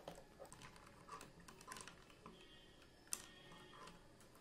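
Spoon stirring a glass of iced thandai: faint, scattered clinks and taps of the spoon and ice cubes against the glass, with one sharper clink about three seconds in.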